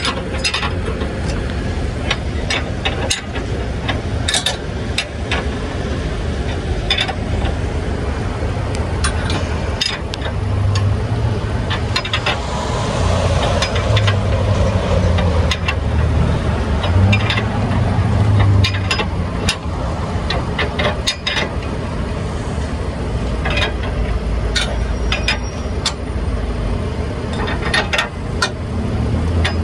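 Tow vehicle's engine idling steadily, with scattered sharp clicks and knocks over it.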